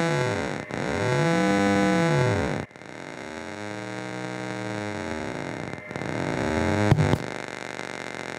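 A very low-frequency stepped sine wave from a vintage Rockland (Wavetek) 5100 DDS frequency synthesizer, played through a hi-fi amplifier and loudspeaker. It comes out as a buzzy tone full of shifting overtones, which is the DAC's stair-stepping made audible. About three seconds in it drops in level and the overtone pattern changes, and a click near the end leaves a steadier buzz.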